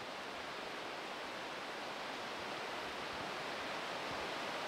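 Steady rushing of white water from the Oulanka River rapids at Oulangan köngäs, an even, unbroken noise that grows a little louder near the end.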